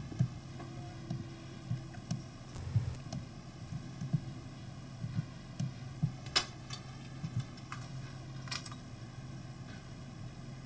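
Quiet room tone: a steady low hum with scattered soft knocks and a few sharper clicks, the clearest about six and eight and a half seconds in.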